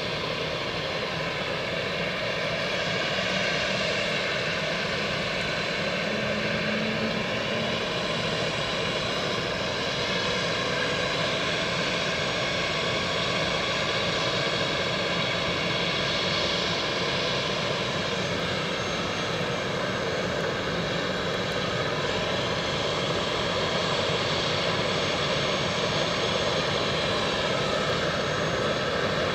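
A medical helicopter's turbine engines and rotors run steadily on the helipad ahead of liftoff. Several high steady whine tones sit over a constant rotor and engine rush.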